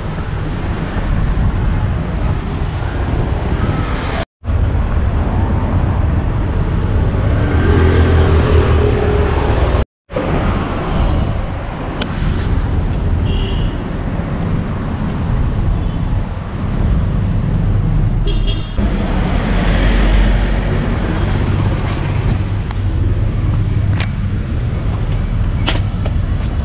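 Street traffic noise: a steady rumble of passing road vehicles, with short horn toots twice near the middle.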